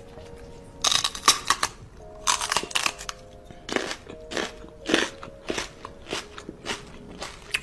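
Close-up wet mouth sounds, smacking clicks and crackles: a quick run of them about a second in, another just after two seconds, then about one every half second.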